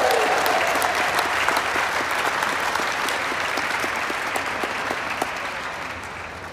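Spectators clapping, a dense patter of many hands that slowly dies away toward the end.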